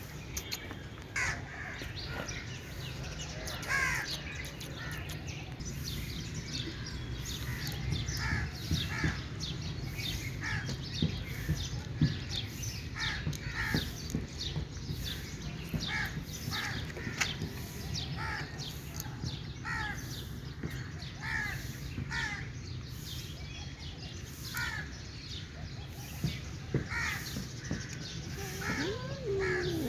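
Crows cawing again and again, short separate calls about one every second or so, over a steady low background noise. A cat meows near the end.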